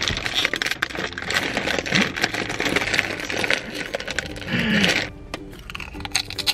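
Plastic potato-chip bag crinkling and crackling as it is torn open and handled, for about five seconds, then going much quieter.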